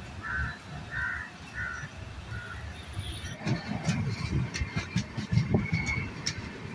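Express train's coaches rumbling on the move, with a busier run of knocks and clatter from about halfway through. Three short caws sound in the first two seconds.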